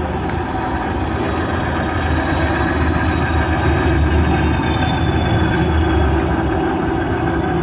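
Steady low mechanical rumble and hum, with a faint high whine above it.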